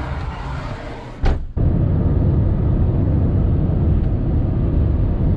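A single thump about a second in, then the steady low rumble of road and engine noise heard from inside a moving car.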